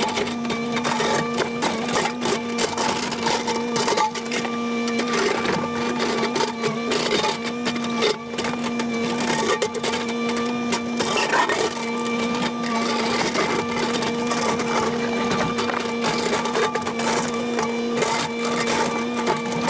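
Kubota KX080 excavator running with a steady droning tone from its engine and hydraulics, while its steel bucket scrapes and breaks up pool concrete, giving many irregular cracks and knocks.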